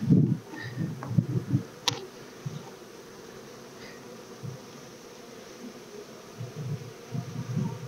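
Honey bees buzzing around an open hive, swelling and fading unevenly as bees fly close. A sharp click comes about two seconds in.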